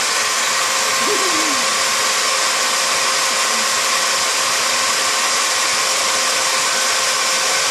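Small electric drill running steadily with a constant whine, its bit boring into a toenail.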